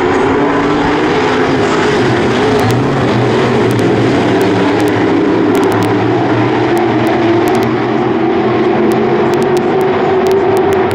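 A pack of dirt-track modified race cars running at speed together: a loud, steady blend of many V8 engines at high revs, wavering a little as the cars go through the turn.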